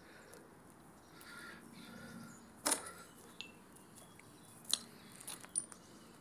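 A few sharp clicks and knocks of footsteps over rubble-strewn ground, the two loudest about two and a half and four and a half seconds in, over a quiet outdoor background with a couple of faint, short high chirps.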